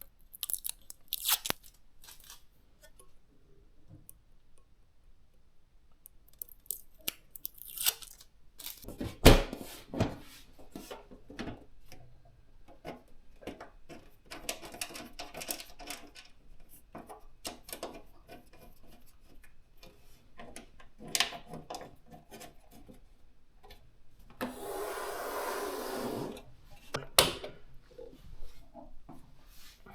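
Hands assembling PC hardware: scattered clicks, knocks and rubbing of parts, with a hard knock about nine seconds in and a two-second rasping, tearing noise near the end.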